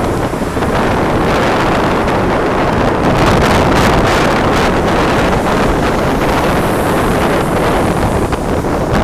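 Loud wind buffeting the microphone, a steady rushing roar with crackling gusts.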